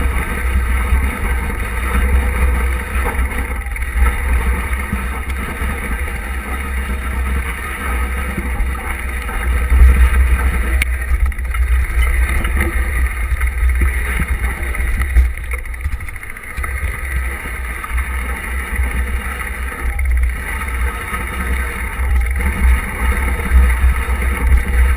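Steady rumble of wind buffeting and ride vibration on an action camera's microphone while riding a mountain bike over a grassy track, surging now and then.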